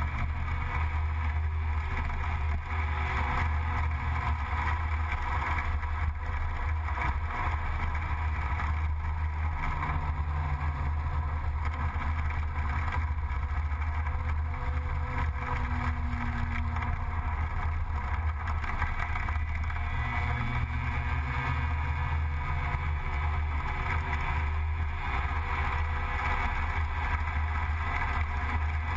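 Gilera Runner 180 scooter engine running steadily at cruising speed, a constant low drone with rushing noise from the ride, its pitch drifting only slightly with the throttle.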